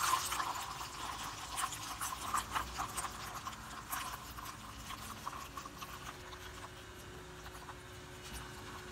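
Electric intercooler pump running with the engine off, purging air from the heat-exchanger coolant system: coolant gurgles and air bubbles crackle and pop in the open reservoir, thinning out toward the end, over a faint steady pump hum.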